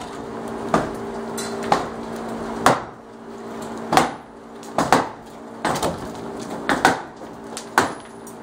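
Repeated heavy blows of a hand demolition tool knocking apart wooden wall framing and lath, about one strike a second, some splintering. A faint steady hum from an unseen machine runs underneath.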